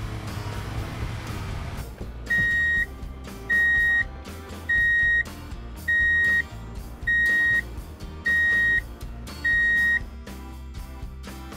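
Seven steady high electronic beeps, each about half a second long and a little over a second apart, like a vehicle's reversing alarm, over background music.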